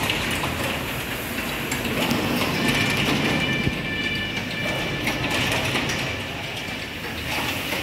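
Steady mechanical clattering and rumbling of workshop machinery, with a high squeal from about two and a half to five and a half seconds in.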